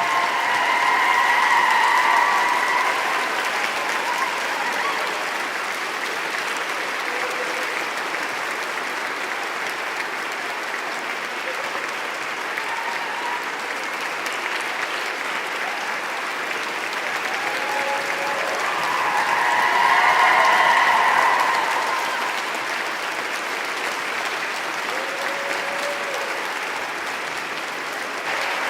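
Crowd applauding continuously, the clapping swelling louder twice, about two seconds in and again around twenty seconds, with a few voices rising from the crowd at those swells.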